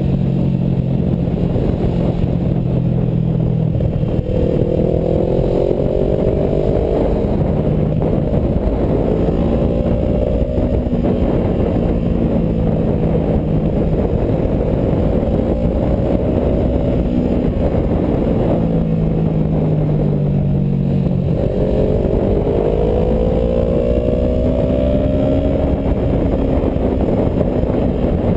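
Motorcycle engine heard from the rider's seat, its note climbing as the throttle opens about four seconds in and again past twenty seconds, and easing off in between. Steady wind rush on the camera microphone runs under it.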